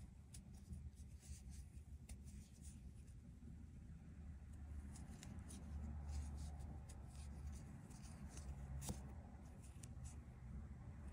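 Soft scratching and rustling of yarn being worked with a crochet hook and fingers, with faint irregular ticks, one a little sharper near the end, over a low steady hum.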